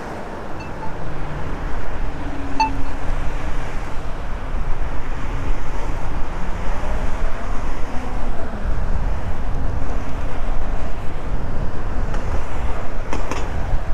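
Wind rushing over the microphone, with road noise from an electric mountain bike being ridden along. It grows louder over the first few seconds.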